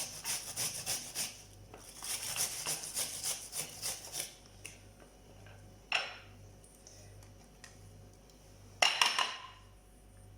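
Onion being grated by hand on the coarse side of a grater: quick rasping strokes, about four a second, with a short break and stopping about four seconds in. Then two sharp knocks, about six and nine seconds in, the second the loudest.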